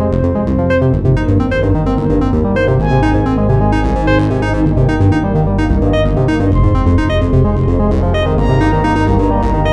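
A Samsung Galaxy phone ringtone playing: an electronic tune of quick short notes over a steady bass line.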